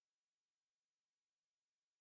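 Near silence: only a faint, even digital hiss.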